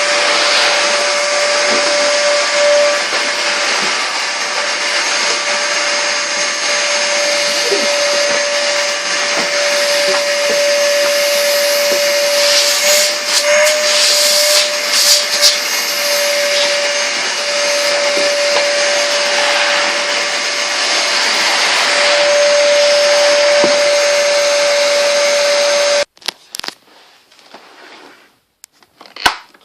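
Numatic NRV 200 commercial vacuum cleaner running with a steady hum and a constant motor whine, its airflow hiss surging higher for a few seconds around the middle. It stops abruptly near the end, leaving only a few faint clicks.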